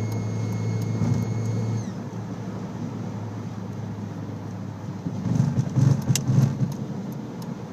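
Audi A4 B6 turbocharged engine running with a high, steady turbo whine that dips slightly in pitch and cuts off about two seconds in as the engine speed falls. The whine comes from a turbo with a compressor fin bent by rubber grommets sucked in from the intake pipe. A few thumps and clicks follow about five to six and a half seconds in.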